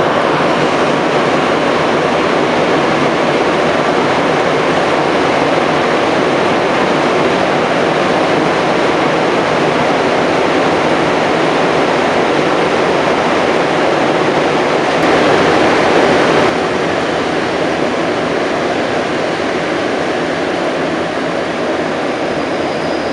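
Inside an MR-73 rubber-tyred metro car running through a tunnel: a steady, loud rush of running noise. It turns briefly louder about two thirds of the way through, then eases slightly toward the end.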